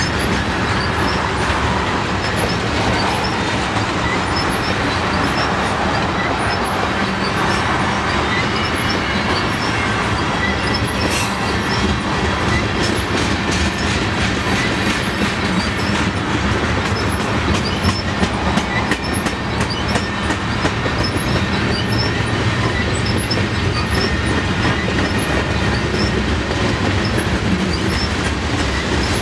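Tank cars of a long freight train rolling past: a steady rumble of steel wheels on rail, with clicks and knocks from the wheels over rail joints, thickest in the middle.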